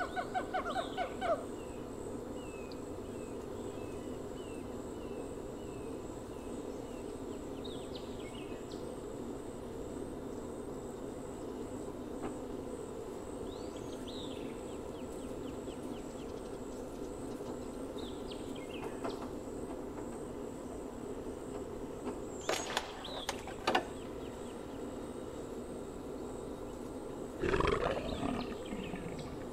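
Wildlife sound effects: a short burst of rising chimpanzee calls at the start, then a steady jungle ambience with bird chirps, a few sharp clicks around two-thirds of the way in, and a lion roar near the end.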